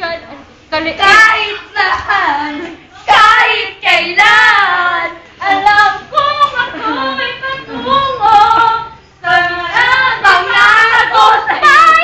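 A girl singing unaccompanied, close to the microphone, in phrases broken by short pauses for breath.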